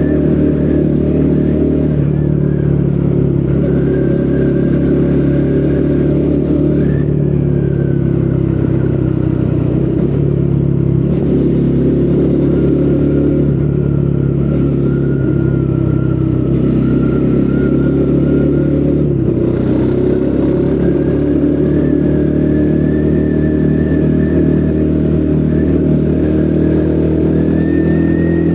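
Triumph Speed 400's 398 cc single-cylinder engine through its stock exhaust, running under way on a ride. The engine note steps up and down in pitch several times as the throttle and gears change.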